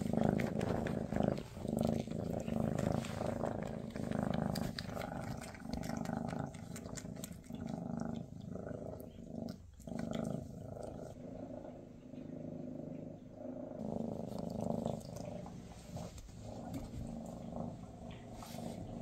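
Maine Coon cat purring close to the microphone, a steady low rumble swelling and fading in slow waves, with small clicks over it.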